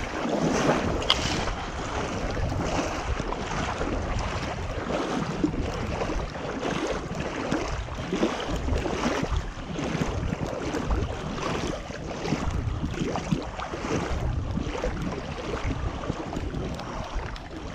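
Wind rushing over the microphone, with irregular water splashing and knocks around a small boat.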